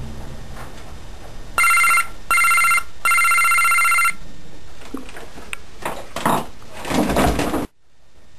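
Electric doorbell rung three times in quick succession, each a steady electronic tone, the third ring longest. A few faint knocks and rustles follow before the sound drops out suddenly near the end.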